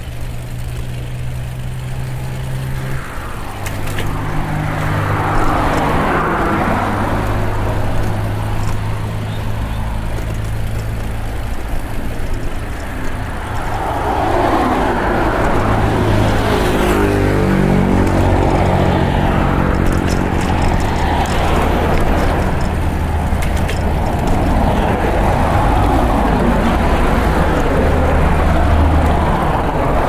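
Road traffic going past close by: motor vehicles passing with a steady engine drone underneath. One vehicle swells past about five seconds in, and louder traffic builds from about fourteen seconds on.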